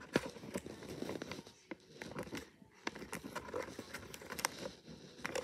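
Green origami paper being folded and creased by hand into a tiny triangle: light paper crinkles and rustles with scattered small clicks.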